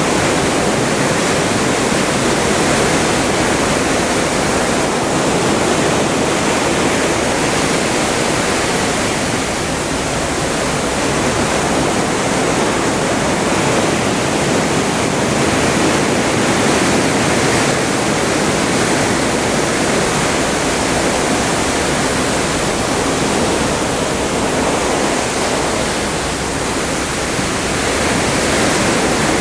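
Atlantic sea water rushing and surging past a cruise ship under way: a steady, loud rushing hiss that eases slightly twice.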